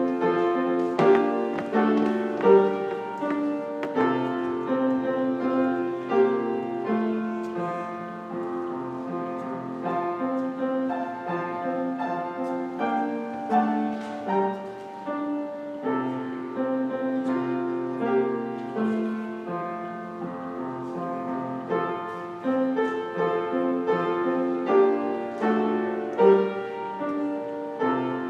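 Solo piano playing a slow hymn-like piece with sustained chords and a melody.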